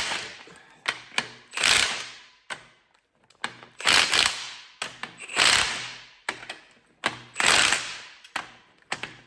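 Hand ratchet wrench turning a bolt in repeated strokes: about five short bursts of rapid clicking, with single sharp clicks and knocks of metal between them.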